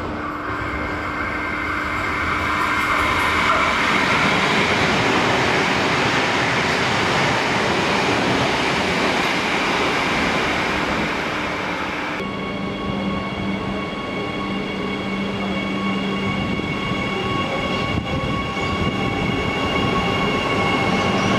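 Adelaide Metro 4000-class electric multiple-unit train running through a station at speed, its rush of wheels and motors building to a peak and then easing. About twelve seconds in, the sound cuts to a ride aboard a moving electric train: a steady rumble with several steady high whines from the traction motors.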